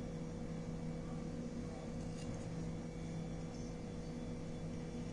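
A steady low machine hum with a constant pitch. Over it come a few faint scrapes of a knife cutting thin dough on a marble rolling board.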